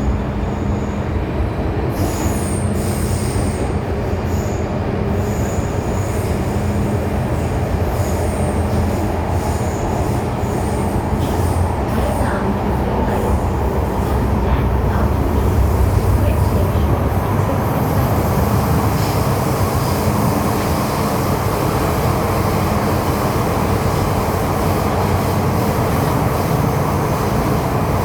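MTR Tseung Kwan O line M-Train running along the track: a steady rumble of wheels and running gear. It grows a little louder about halfway through.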